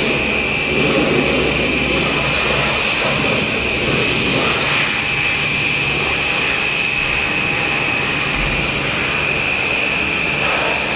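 Steady workshop machine noise: a constant high whine over an even hiss, with no change in level.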